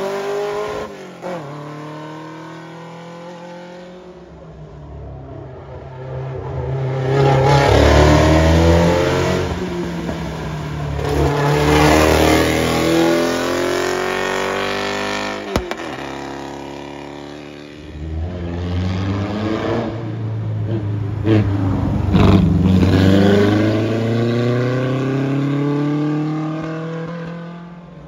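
Competition cars climbing a hill road past the listener one after another, engines revving hard, with pitch rising and dropping as they change gear and go by. One car is loudest about eight seconds in and another about twenty-two seconds in.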